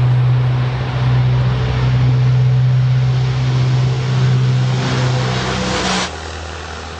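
Tupolev Tu-95MS bomber taking off, its four turboprops with contra-rotating propellers giving a deep, steady drone. A hiss swells near the end, then the sound cuts abruptly to a quieter, lower drone about six seconds in.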